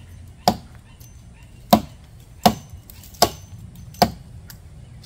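Small hatchet chopping into an Osage orange branch: five sharp chops over about four seconds, the first two more than a second apart, then about one every three-quarters of a second.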